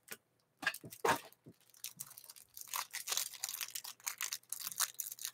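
A trading-card hanger box being torn open and its stack of cards handled: short rips, crinkles and card rustles, scattered at first and busier from about halfway in.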